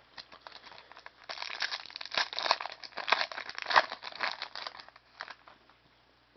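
Plastic trading-card pack wrapper crinkling and tearing as a pack is opened, a dense run of crackles that is loudest from about a second in until near the end.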